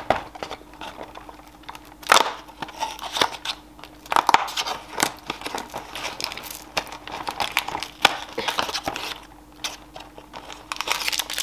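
Fingers prying and tearing open a perforated cardboard door of an advent calendar. Irregular scratching, tearing and crinkling with sharp clicks; the cardboard gives way around 2 and 4 seconds in, and there is a burst of crinkling near the end as the wrapped sweet inside is handled.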